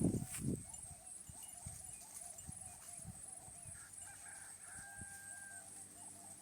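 A short louder sound right at the start, then a faint, drawn-out animal call holding one pitch about four to five seconds in.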